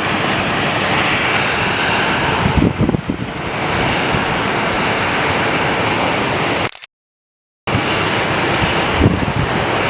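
Airbus A330neo jet airliner's Rolls-Royce Trent 7000 turbofans roaring steadily as it climbs away on departure, with low gusts buffeting the microphone. The audio cuts out completely for about a second two-thirds of the way through.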